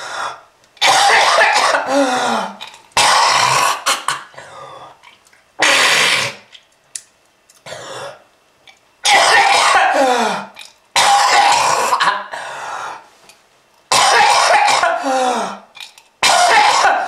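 A person coughing hard in repeated fits, about eight harsh bouts with short breaks between them. Several bouts trail off in a voiced sound that falls in pitch. It is presented as a smoker's cough.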